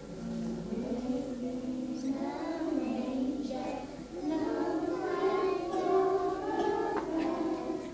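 Young children singing a lullaby in held notes, in two phrases with a short break about four seconds in.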